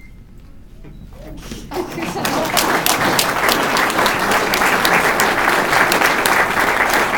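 Audience applauding. It starts about two seconds in, builds quickly and holds as dense, loud clapping.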